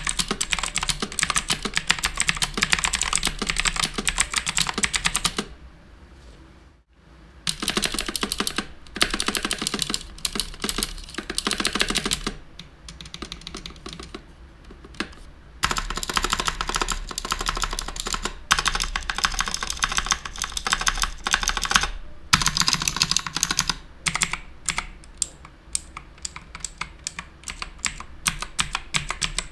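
Typing on an HP GK100 full-size mechanical keyboard with blue switches: fast runs of clicky keystrokes with a short pause about six seconds in, slowing to separate single key presses near the end.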